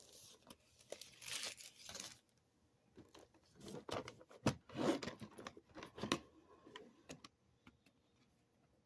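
Model kit packaging being opened by hand: a tearing rustle about a second in, then crinkling and handling of paper and plastic with a few sharp clicks.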